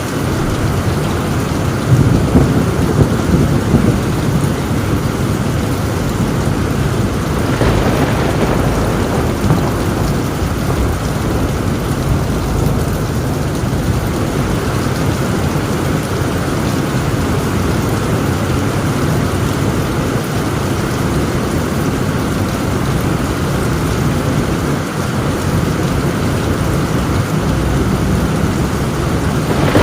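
Heavy rain drumming on a tin roof with a continuous low rumble of thunder, swelling louder about two to four seconds in.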